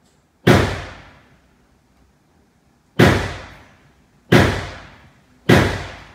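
Four pistol shots from a GSG 1911 .22 rimfire pistol: one about half a second in, then after a pause three more roughly a second and a quarter apart. Each shot is sharp and ends in a short echoing tail from the indoor range.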